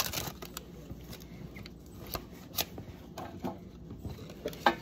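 A Pokémon booster pack's foil wrapper being torn open and the cards slid out of it: a string of light crinkles, rustles and clicks.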